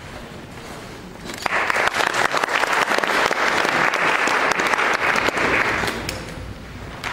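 Audience applauding: a dense patter of many hands clapping that starts abruptly about a second in, holds steady, and dies away near the end.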